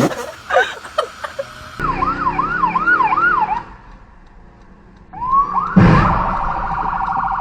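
Emergency vehicle siren wailing up and down in quick cycles, then after a short lull rising again into a steady fast warble. A loud thud comes about six seconds in.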